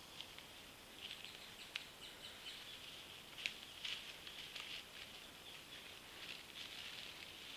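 Faint scattered crackles and ticks of dry leaf litter, twigs and bark as American black bears move about, one standing up to claw at a tree trunk, over a steady faint high hiss.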